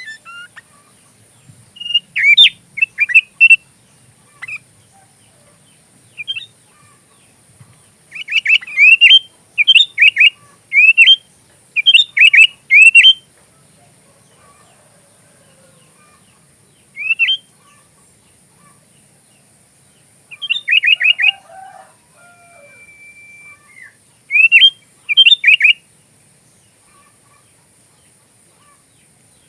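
Sooty-headed bulbul (kutilang) singing: short bursts of quick, bright chirping notes, each phrase lasting about one to two seconds and separated by pauses of several seconds.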